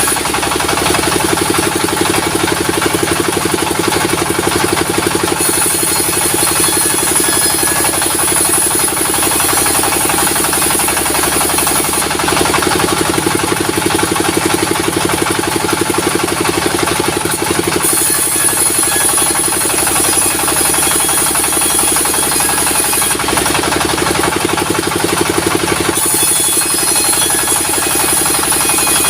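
A diesel-engine-driven sawmill running steadily with a fast, even chugging. A high hiss comes in and drops out three times, several seconds each time.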